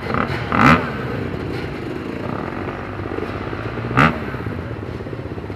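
Off-road motorcycle engines running at idle, with two quick throttle blips, one just under a second in and another about four seconds in.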